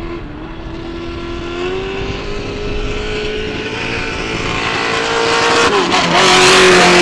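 Trophy truck's engine running hard, its pitch slowly climbing, then dipping sharply near the end. A loud rush of tyre and dirt noise follows as the truck passes close.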